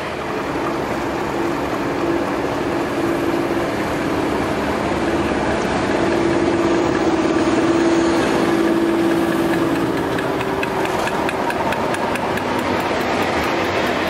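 Class 31 diesel locomotive passing slowly at close range, its engine running with a steady hum that swells about halfway through as the cab draws level. In the last few seconds its wheels click rapidly over the rail joints.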